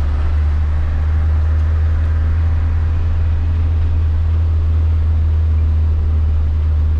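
Motorhome driving along a road: a steady low drone of engine and road noise with no change in speed or pitch.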